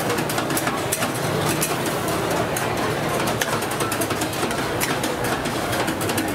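Busy street-food market ambience: a steady low mechanical hum under a dense din, with frequent short clinks and clatter.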